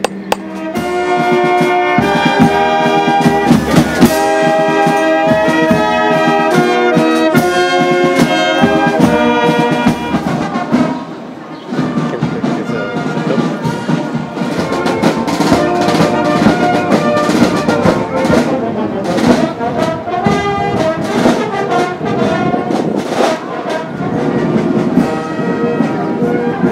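Marching brass band playing: trumpets, trombones and horns playing a tune together, with a short break about eleven seconds in.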